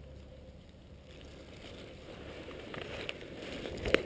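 Rustling and crunching in dry leaves and brush from movement on the forest floor, growing louder in the second half, with a few sharp snaps near the end, the loudest just before the close.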